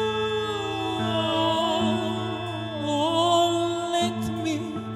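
Live band music: a steady low drone under a high, wavering melody line with vibrato.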